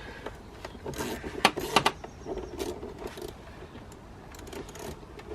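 Hand tools and metal battery fittings clinking and knocking irregularly as a car battery's clamp and terminals are worked loose, with a few sharp clicks about one to two seconds in.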